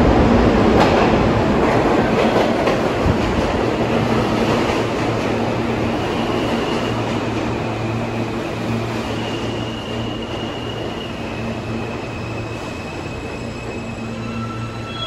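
New York City subway train running along the platform, loud at first and fading steadily, with a steady low hum and a thin high wheel squeal in the middle.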